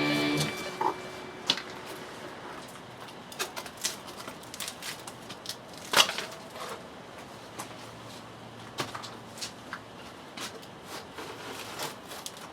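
Scattered light clicks and taps at uneven intervals, the loudest about six seconds in.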